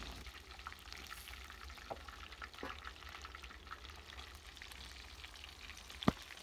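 Besan-battered fish pieces crackling and sizzling as they deep-fry in hot ghee in a karahi, with a few light clinks of a steel ladle lifting pieces out. A single sharp metal knock near the end.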